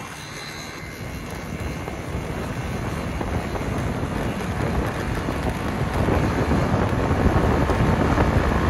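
Wind rushing over the microphone and road noise from a moving vehicle at speed. It grows steadily louder and cuts off suddenly at the end.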